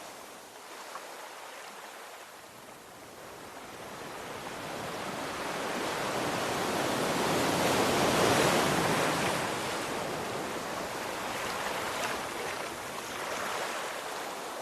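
Sea waves breaking on a shore: a wash of surf that swells to a peak about eight seconds in and draws back, with a smaller swell near the end.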